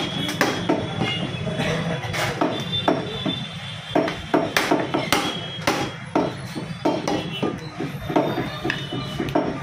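Heavy butcher's cleaver chopping goat ribs and meat on a wooden block, in irregular sharp knocks, over a steady low hum.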